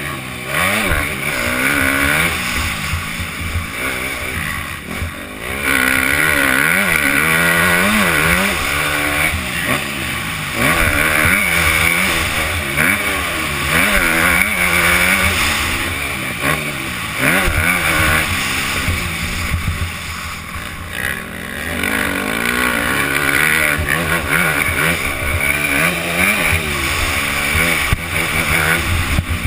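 Motocross bike's engine revving up and falling back over and over as the rider accelerates, shifts and rolls off the throttle. Wind rushes over the helmet-mounted camera.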